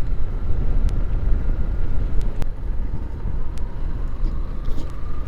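Motorcycle running at riding speed on a rough dirt road, with a steady low rumble of wind on the microphone.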